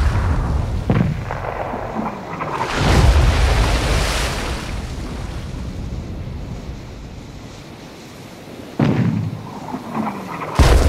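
Cannon fire sound effects: about four booms, each with a long rumbling tail. The biggest comes about three seconds in, and two more sharp ones come near the end, with a steady wash of sea and wind between.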